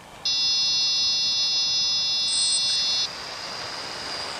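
Pixhawk flight controller's buzzer sounding one long steady high-pitched arming tone of about three seconds, the signal that the 3DR X8+ octocopter's motors are armed; a higher tone briefly joins near its end. A fainter steady high whine with hiss follows.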